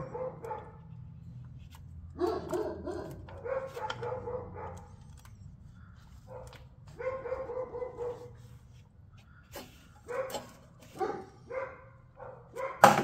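A dog barking in several bouts of a second or two each, with a sharp knock near the end.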